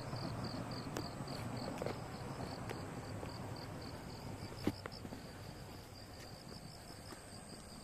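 An insect chirping in a high, even pulse of about four chirps a second, over the low rumble of a distant Yamagata Shinkansen train that slowly fades. One sharp tap about two-thirds of the way through.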